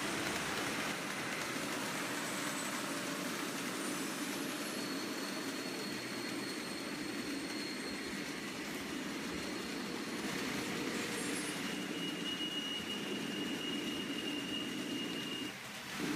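Several N-scale DCC model locomotives running at once: a steady whir of small electric motors and metal wheels on the rails, with a thin high whine held for a few seconds, once from about four seconds in and again near the end.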